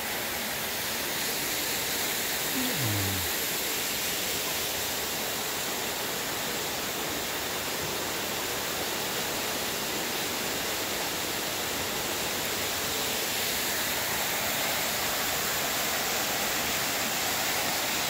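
Small waterfall pouring steadily over rocks into a shallow creek: a constant, even rush of water.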